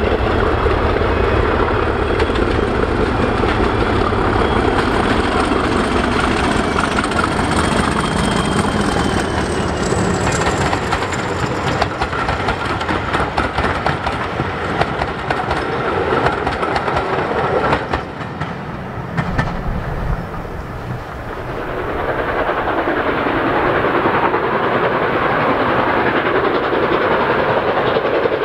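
Two diesel locomotives pass under power hauling a passenger train, their engine note and a high whine dropping in pitch as they go by. The coaches then roll past with a clickety-clack over the rail joints. After a brief quieter spell, another train is heard working steadily near the end.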